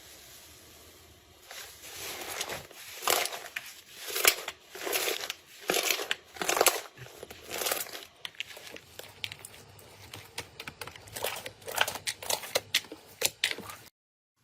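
Slime being pressed and squeezed by hand, giving a series of crinkling, crackling squishes about one or two a second. After about eight seconds these turn into a quicker run of small crackles and pops, and the sound stops abruptly near the end.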